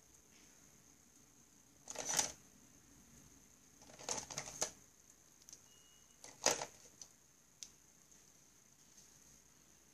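Plastic pens and markers clattering and clicking against each other as they are picked out and handled: short rattles about two, four and six and a half seconds in, then a couple of small clicks. A faint steady high-pitched whine runs underneath.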